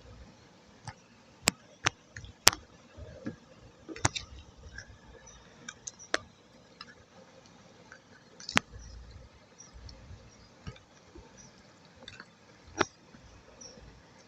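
Irregular sharp clicks and crackles of clay being handled in a clay mukbang, a handful of crisp snaps a second or more apart, the loudest cluster about one to three seconds in.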